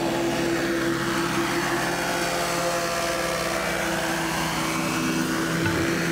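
Microlight trike's engine and pusher propeller running steadily as the trike flies low past and climbs away.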